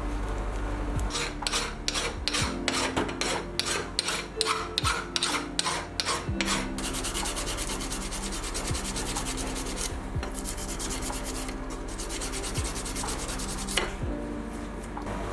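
Hand file strokes on metal, about three a second, over background music, giving way to a steadier scraping noise.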